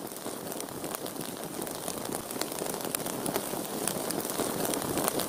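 Cartoon sound effect of a lit bomb fuse sizzling and crackling as it burns down: a steady hiss full of small crackles, slowly growing louder.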